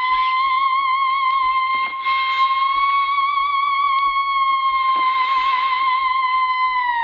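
An eerie held high note with a light vibrato, drifting slowly up in pitch and back down: a spooky theremin-style wail.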